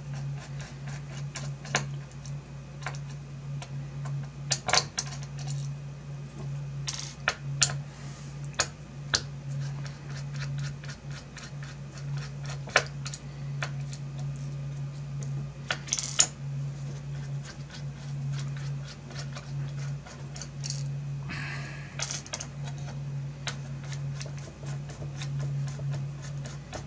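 Screwdriver and small screws clicking and ticking against a graphics card's backplate as the backplate screws are unscrewed, in scattered sharp clicks. A steady low hum runs underneath.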